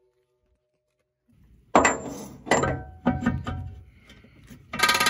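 Several sharp metal clanks that ring on, then near the end an impact wrench starts hammering on the bolt that holds a bush hog's cutter blade, a loud fast rattle.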